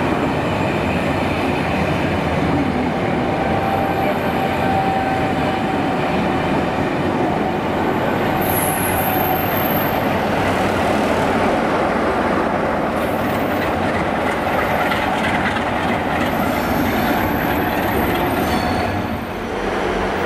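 Passenger coaches rolling past close by, wheels rumbling and clattering on the rails with a thin wheel squeal at times. About halfway through, the Class 47 diesel locomotive on the rear of the train passes, the loudest part.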